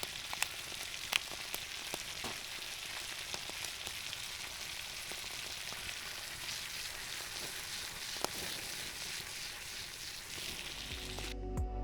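Food frying in butter in a pan over a campfire: a steady sizzle with scattered sharp pops. Music with a plucked guitar cuts in just before the end.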